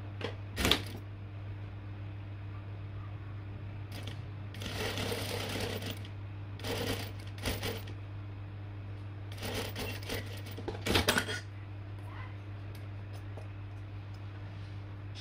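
Sewing machine stitching in three short runs over a steady low hum, with a sharp click just before.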